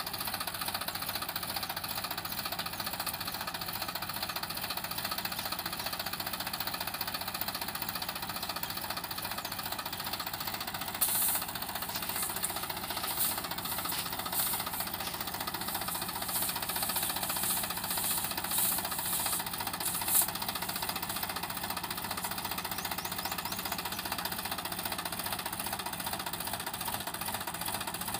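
Sonalika DI 35 tractor's three-cylinder diesel engine running steadily under heavy load, pulling a sand-laden trolley hard enough to lift the tractor's front wheels off the ground. A few short bursts of noise come between about 11 and 20 seconds in.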